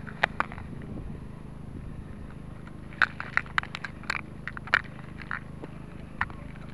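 Handling noise on a small camera's microphone: scattered sharp clicks and scrapes, bunched together from about three seconds in, over a steady low electrical hum.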